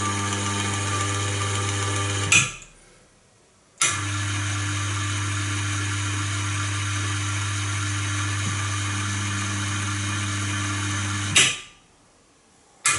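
Inverter-driven electric gear motor running with a steady hum. It stops abruptly twice with a click, is silent for about a second and a half each time, then starts again with a click, as the mixing program cycles the shaft.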